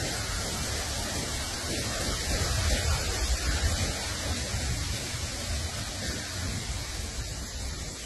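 Steady noise: an even hiss over a low rumble, with no distinct bird calls standing out.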